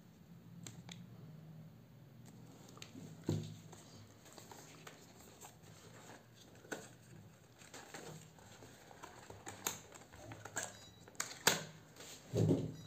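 Small cardboard retail box being handled and opened by hand: scattered light clicks, taps and cardboard rustles, with a few sharper knocks and a duller thump near the end.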